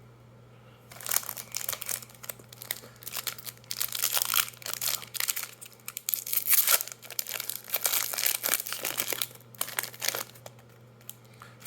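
Foil wrapper of a Magic: The Gathering set booster pack crinkling and tearing as it is handled and opened. Crackling starts about a second in and dies down near the end.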